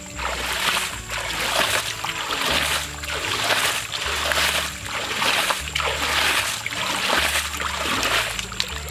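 Hands splashing and scooping in shallow muddy water, about once a second, over background music with a steady bass line.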